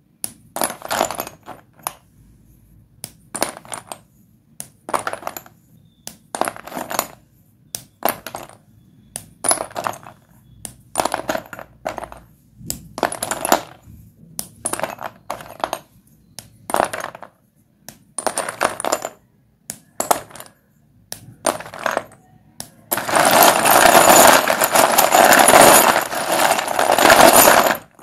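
White dustless school chalk being broken and crumbled with crunchy snaps, a short crackle about once a second. Near the end comes several seconds of continuous, louder crunching.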